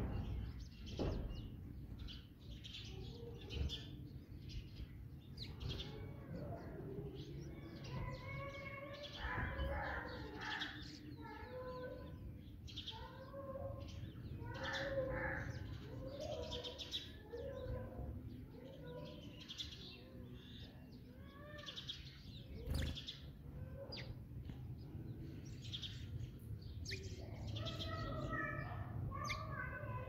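House sparrows chirping, many short chirps overlapping throughout, with wings flapping as birds fly in and out.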